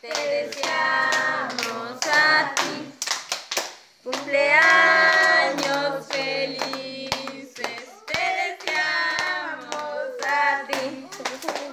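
A group of people singing a birthday song together, clapping their hands along with it.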